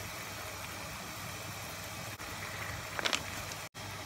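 Pot of water at a rolling boil on a gas stove: a steady low rumble and hiss. A brief rustle about three seconds in.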